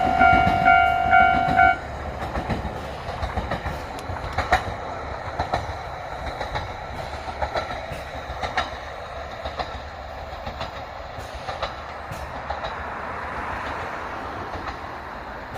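Level-crossing warning signal ringing in rapid, even pulses, cutting off about two seconds in. Then a Nagara Railway diesel railcar rolls on past with a steady rumble and scattered wheel clicks over the rail joints, slowly fading.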